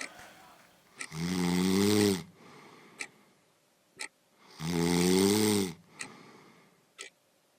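A man snoring loudly: two long snores, each about a second long and some three and a half seconds apart, with short sharp clicks in the pauses between them.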